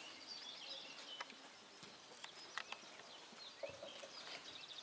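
Faint open-air ambience at a football pitch: distant high calls and chirps with a few sharp taps.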